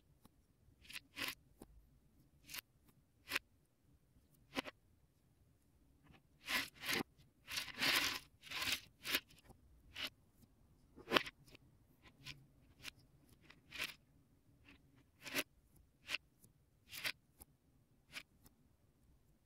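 Plastic Lego Technic parts from the 1984 set 8040 clicking and scraping as they are handled and fitted, in irregular single clicks. There is a denser stretch of rattling and rubbing about seven to nine seconds in.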